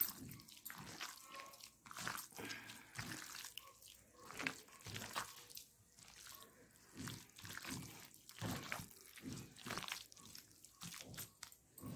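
Fingers squeezing and mixing an oily mashed-eggplant bharta on a plate: faint, soft wet squelches and rubs in an irregular rhythm, about one or two strokes a second.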